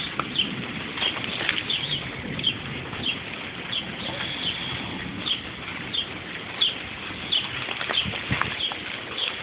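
A bird chirping over and over, short high chirps about twice a second, with a few sharp taps and a steady outdoor hiss.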